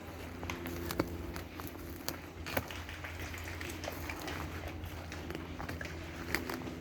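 Footsteps and gear rustling as an airsoft player moves on foot, over a steady low rumble, with a few sharp snaps standing out about one, two and a half and six seconds in.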